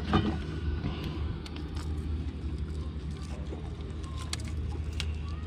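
Steady low motor hum, with scattered light clicks and rattles from pliers as a hooked bass is handled and unhooked.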